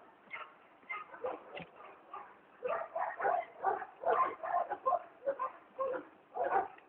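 Short, high animal cries in quick succession: a few scattered ones at first, then several a second and louder from about two and a half seconds in.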